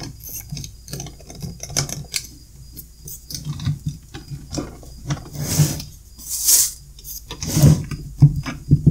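Handling noise from two 12 V sealed lead-acid batteries being pushed and slid together into a battery pack: hard plastic cases rubbing, scraping and knocking, with a few louder scrapes in the second half and thumps near the end.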